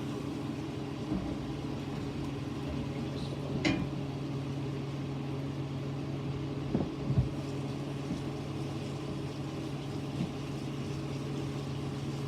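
Steady low appliance-like hum over a faint even hiss of chicken and vegetables cooking in a pan, with a few light knocks of a utensil against the pan about 4 and 7 seconds in.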